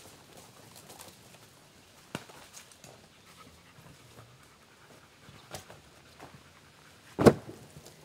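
A dog panting softly, with a few light knocks and one heavy thud near the end, as slabs of ash bark are handled and dropped on a pile.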